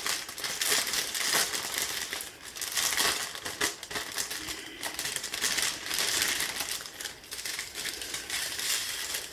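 Thin clear plastic bags crinkling and rustling as they are handled and unfolded, an irregular run of small crackles that holds on throughout.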